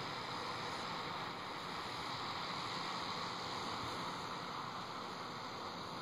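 Steady rushing noise of a vehicle driving, heard from inside the cab.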